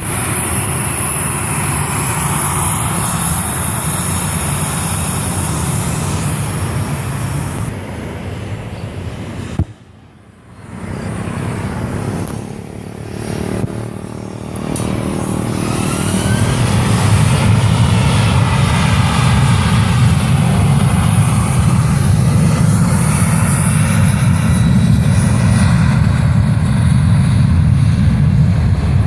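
Boeing 737-800 jet engines running loud, with a sudden break about ten seconds in. The engines then spool up with a rising whine and build to a steady, deep takeoff rumble.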